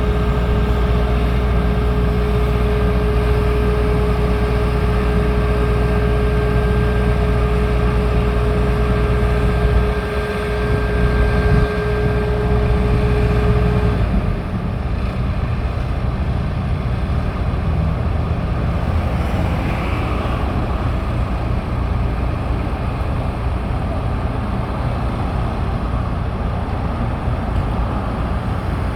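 A motor engine running steadily with a deep rumble and a steady whine. About halfway through, the whine and the deepest rumble stop, and a rougher, noisier engine sound carries on.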